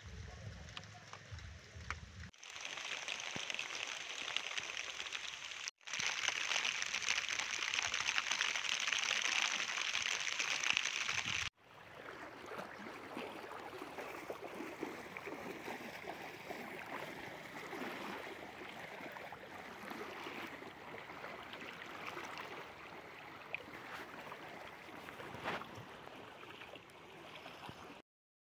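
Flowing floodwater: a steady rush of water with no tone in it. It cuts abruptly a few times, and one stretch in the first half is louder and more hissing.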